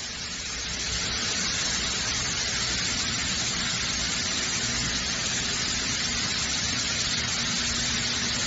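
Disc-stack centrifuge separators running in a processing plant: a steady, loud whirring hiss that swells over the first second and then holds even. A faint low hum joins in near the end.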